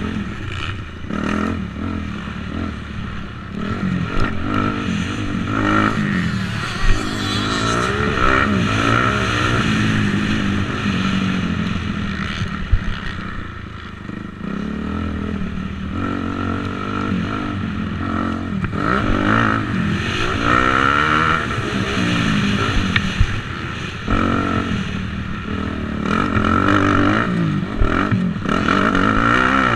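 Motocross bike engine revving through the throttle over and over, its pitch climbing and dropping back every second or two as it rides the track.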